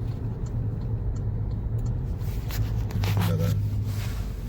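Car engine running with a steady low drone, with a few light clicks and rustles over it.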